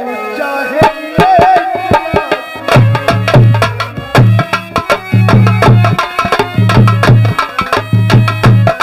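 Folk-theatre stage music: drums beating a lively rhythm, with deep bass strokes coming in groups from a few seconds in, over sustained melodic notes and a brief wavering melody line about a second in.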